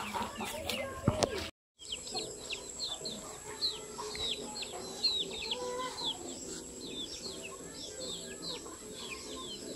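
Small birds chirping rapidly, many short calls falling in pitch several times a second, with chickens clucking now and then. The sound drops out briefly about a second and a half in.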